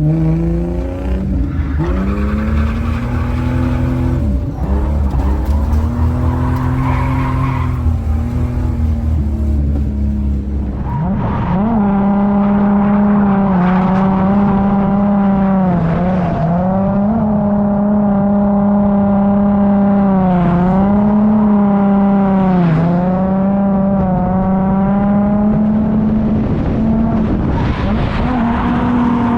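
Holden Commodore's Ecotec V6 held at high revs through a drift, with tyre squeal. The engine note rumbles and wavers for the first ten seconds or so, then from about eleven seconds in holds a high, steady pitch that dips briefly every couple of seconds as the throttle is modulated.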